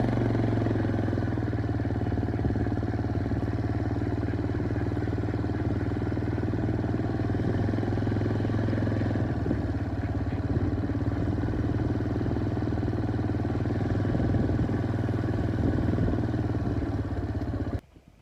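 A vehicle engine running steadily at an even speed, then stopping abruptly near the end.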